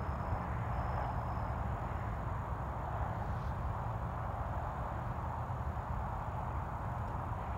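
Steady outdoor evening ambience: an even hiss with a low, unsettled rumble underneath and no distinct thunderclap. A faint high chirp repeats a few times and stops about a second and a half in.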